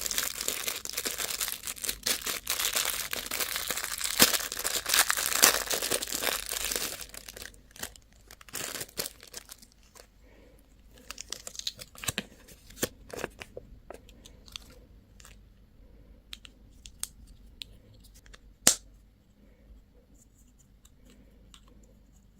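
Candy wrapper being torn open and crinkled by hand, a dense run of tearing and crackling for about seven seconds, then only scattered crinkles and small clicks with one sharp click near the end.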